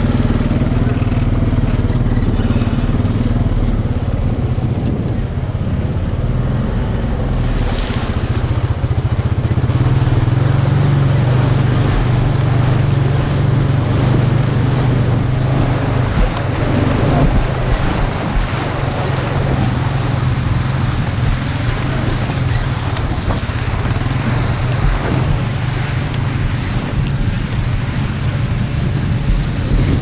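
Quad bike (ATV) engine running steadily under load, getting louder about a third of the way through as it drives into a shallow, stony river; water rushes and splashes around the wheels, with wind buffeting the microphone.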